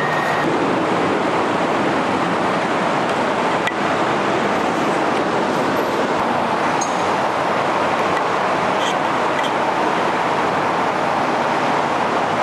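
Steady, even rushing noise with a few faint clicks in it.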